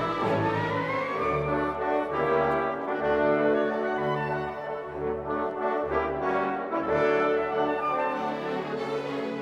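Orchestral background music with sustained brass notes, horns and trombones prominent, and a rising sweep about half a second in.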